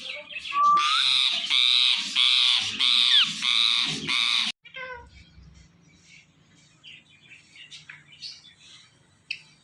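Indian ringneck parrot screeching, a rapid run of harsh calls about two a second with a short rising whistle near the start. About four and a half seconds in the sound cuts off suddenly, leaving only faint small noises.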